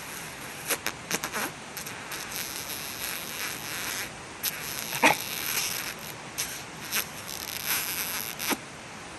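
A dog sniffing and snuffling close to the microphone, in hissy stretches mixed with sharp clicks and rubbing, and a short falling sound about five seconds in.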